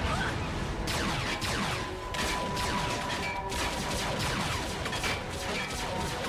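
Cartoon action-scene soundtrack: rapid bursts of weapon fire and impacts over background score music.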